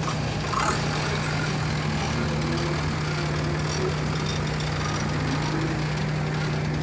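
Wood chipper's engine running steadily with a constant low hum.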